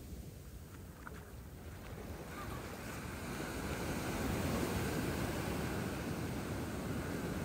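Ocean surf: a wave breaks and washes up the beach, the rush swelling about two seconds in and staying up, with wind buffeting the microphone.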